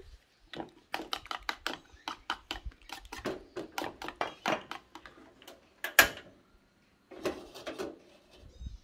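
Metal spoon beating a raw egg in a small plastic bowl: a quick run of clicks against the bowl, about four a second, then one sharp knock about six seconds in. Near the end a short metallic clatter as the wok is shifted on the gas stove.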